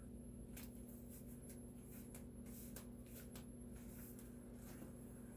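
Faint rustling and light clicks of a shrink-wrapped vinyl LP jacket being handled and its plastic wrap pulled off, over a steady low hum.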